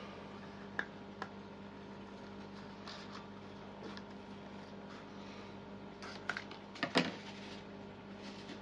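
Scattered light clicks and rustles of a thin black plastic pot and scissors being handled, with a louder clatter about seven seconds in, over a steady low hum.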